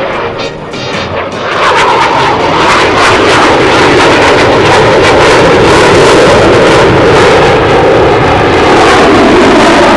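McDonnell Douglas CF-18 Hornet fighter's twin turbofan engines: loud jet noise from the low-flying aircraft, swelling sharply about a second and a half in and then staying loud.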